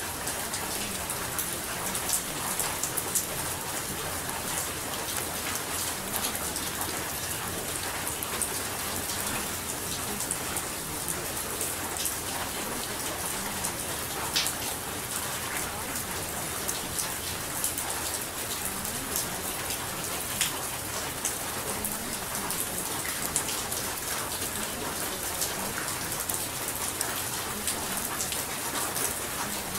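Steady rain: an even hiss dotted with many small, sharp drop ticks.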